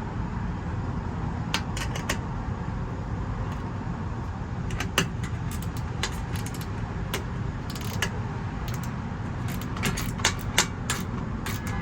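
Scattered small metallic clicks and clinks of bolts, washers and nuts being handled and fitted to a solar panel mounting bracket, over a steady low background rumble.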